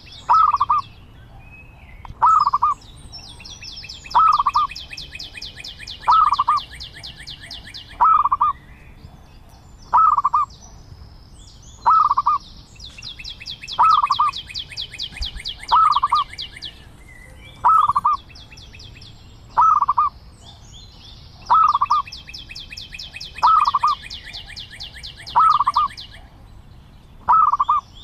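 Zebra dove calling: short coos repeated evenly, about one every two seconds. A higher, fast trill runs for a few seconds at a time between and over them.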